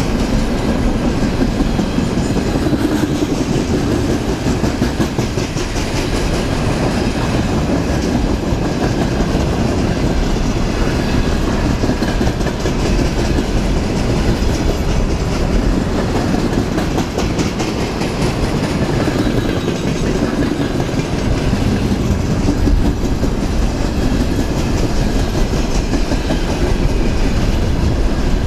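A train running past close by: a steady, loud rolling of steel wheels on rail, with a continuous run of regular clicks from the wheels crossing rail joints.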